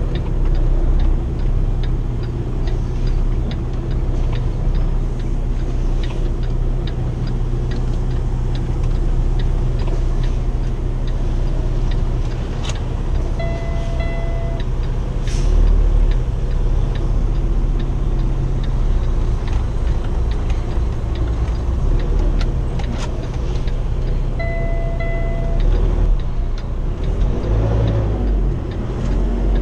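Diesel engine of a 2015 Kenworth T680 semi-truck running steadily at low speed, heard from inside the cab while the truck is slowly maneuvered, with a faint regular ticking. Two short beeps sound about ten seconds apart.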